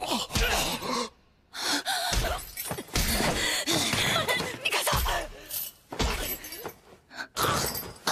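Anime sound effects of a beating: a string of sudden kick and hit impacts, with gasps and a short shouted line between them, and a brief drop to near silence about a second in.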